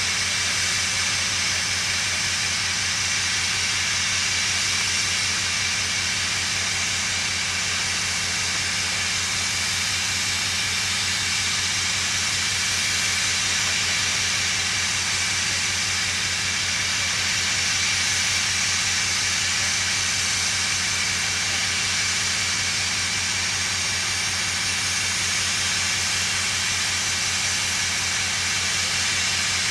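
Garratt steam locomotive standing with a steady hiss of steam, and a low, fast throb underneath that does not change.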